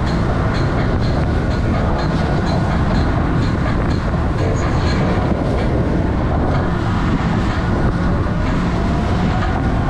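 Powerboat running at speed over the open sea: steady engine drone and rumble with the hull slapping through the chop and spray, heavy wind noise on the microphone, and a faint rising whine near the end.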